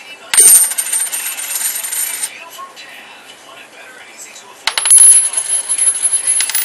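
A handful of pre-1965 90% silver US coins (Franklin half dollars, Washington quarters and Roosevelt dimes) jingling and clinking together, with a high, bright ring. This happens in two bouts: one of about two seconds just after the start, and another beginning about two-thirds of the way through.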